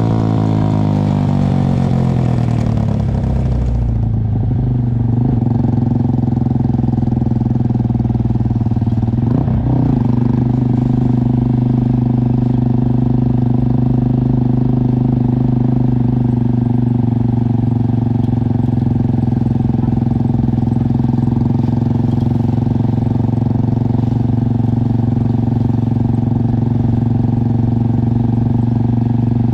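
Motorcycle engine winding down in pitch as the rider rolls off over the first few seconds, then running at a steady pitch while cruising, with a brief rise and fall about nine seconds in.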